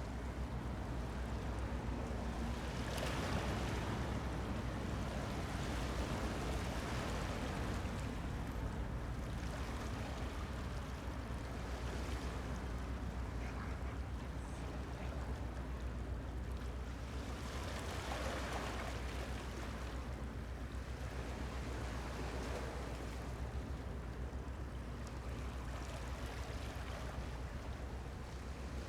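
Helicopter rotor and engine noise: a steady low drone under a rushing sound that swells now and then.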